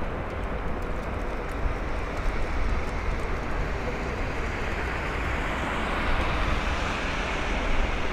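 Heavy-lift cargo ship passing close by: a steady low rumble with the rushing hiss of water along its hull, the hiss swelling a little in the last few seconds.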